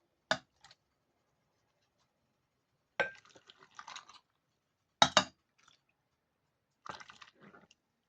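Glass jars and a utensil clinking and knocking together while jars of cucumbers are filled with marinade, in four short bursts with quiet gaps between.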